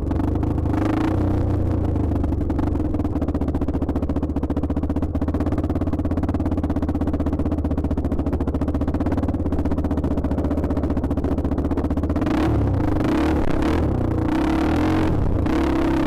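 Dirt bike engine running hard at a steady speed, with a constant note for most of the time; about twelve seconds in, the note breaks up and shifts up and down.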